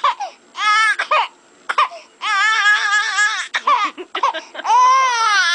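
Young baby crying hard in a fit: three long wails that rise and fall in pitch, separated by short breaks and catches of breath.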